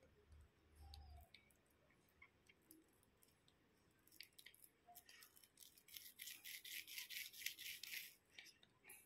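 Fingers working a wet slime mixture in a plastic bowl. Faint sticky crackles start about four seconds in, build into a quick, dense run, then stop shortly before the end.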